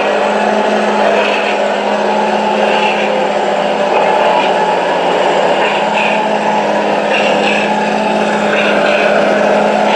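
A motor running steadily: a constant hum under an even whirring rush, with no change in speed.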